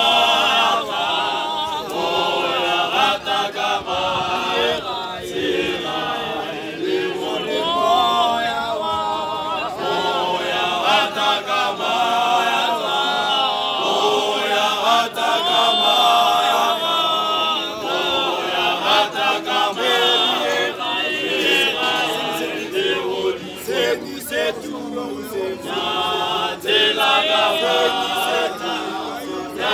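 Male church choir singing a cappella, several voices in harmony, with no instruments.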